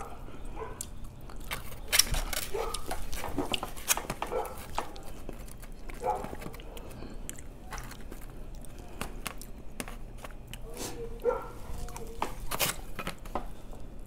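Close-up eating sounds: chewing and lip smacking on sushi, with a few sharp clicks and taps from wooden chopsticks working in a plastic bowl and a foam takeout tray.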